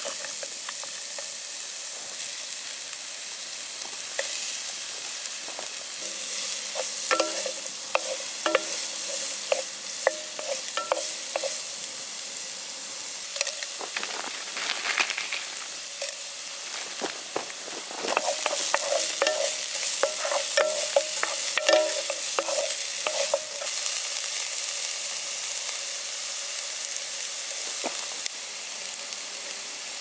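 Food frying in a hot pan with a steady sizzle, while a metal utensil stirs it and clinks and scrapes against the pan, most busily about a quarter of the way in and again past the middle.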